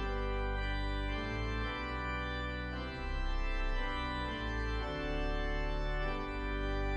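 Organ music: slow, sustained chords that change roughly every one and a half seconds.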